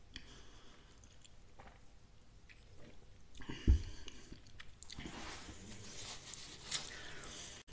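Quiet mouth sounds of eating and drinking, then a drinking glass set down on the table with a single knock about three and a half seconds in. After that, a paper napkin rustles as it is wiped across the mouth.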